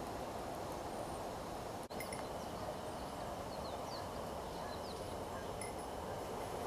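Small birds chirping in short, high calls over a steady rushing background; the background drops out for a moment about two seconds in.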